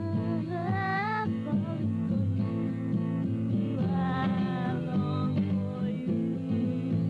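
Acoustic rock song: a voice singing over guitar, with sung phrases about half a second in and again about four seconds in.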